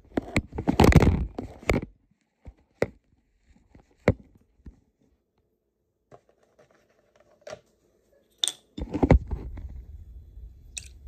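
Handling noises of a juice carton and a cup on a kitchen counter: a burst of knocking and rustling at the start, then a few scattered sharp clicks and taps, and a low rumble of handling from about nine seconds in.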